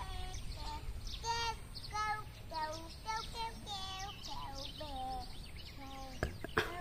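A small child singing to herself in a string of short, high, sing-song notes, about two a second. A couple of sharp clicks come near the end.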